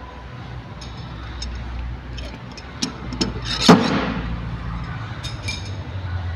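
Paintless dent repair glue pull: a few light clicks, then a sharp pop about three and a half seconds in as a glue tab is pulled off the car's body panel, lifting the dent, with a short ring after it and more light clicks near the end.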